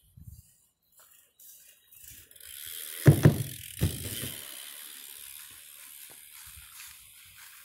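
BMX bike's tyres rolling on asphalt, getting louder as the rider approaches. About three seconds in come two heavy thumps, a little over half a second apart, as the wheels go over the plywood ramp. The rolling hiss then fades as the bike rides away.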